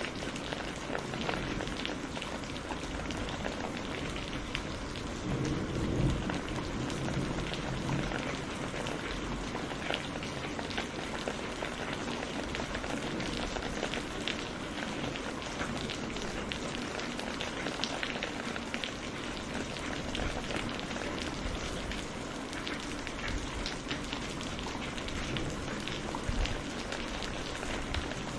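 Steady heavy rain falling on hard surfaces: a continuous hiss with individual drops ticking, and a short low rumble of distant thunder about six seconds in.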